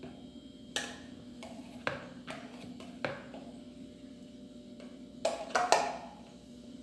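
Light clinks and knocks of tableware being handled while foam-ball dough is mixed in a dish, about six short hits scattered through, the loudest pair a little before the end, over a faint steady hum.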